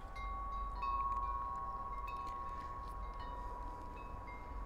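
Metal wind chimes ringing, several clear tones struck one after another. One stronger tone comes in about a second in and rings on for several seconds.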